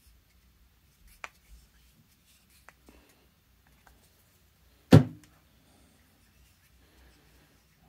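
Hands handling a plastic jet-pump cone at a workbench: a few faint clicks, then one sharp knock about five seconds in.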